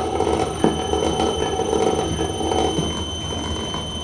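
The bare 18 V DC motor and all-metal gearbox of a Xenon CDRS1845 cordless reciprocating saw, out of its housing, running at low speed off the trigger switch: a steady whirr with a high whine held on one note.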